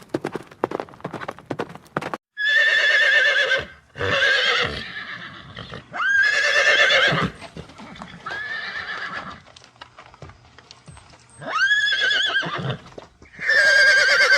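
Hooves clip-clopping for about two seconds, then horses whinnying: about six loud, quavering calls of a second or so each, with short gaps between them.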